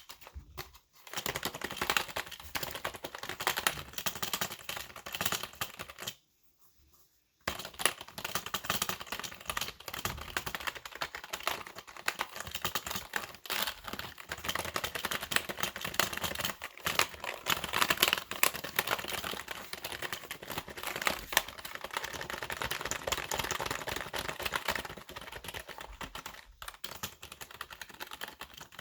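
Fast, aggressive typing on a computer keyboard: a dense, continuous stream of key clicks, stopping for about a second some six seconds in, then going on again.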